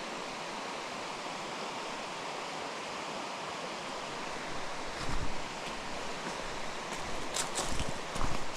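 Steady rush of running creek water, with two low thumps about five and eight seconds in and a few sharp crackles just before the second.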